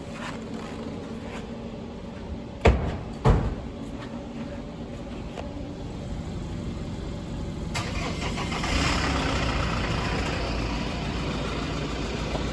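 Two loud thumps about three seconds in, half a second apart, then a car engine starting a little after the middle and running steadily.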